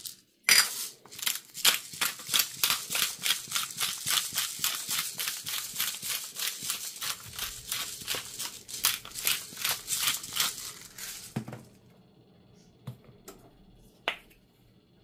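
Glass pepper grinder twisted by hand, grinding black pepper: a quick run of dry crunching clicks, about four a second, that stops about eleven seconds in. Two single faint knocks follow near the end.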